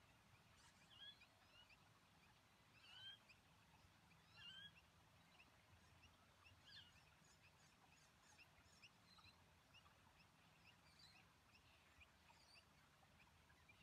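Near silence, with faint bird chirps and a few short calls in the background.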